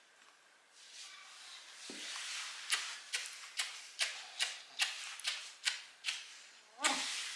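A woman kissing a bulldog over and over: a quick, even run of about ten sharp lip smacks, two or three a second, ending in a louder smack.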